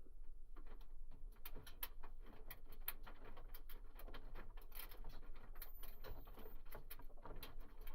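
Washing machine drum coasting down after a spin, with the balls in its balance ring rattling and clicking irregularly over a low hum.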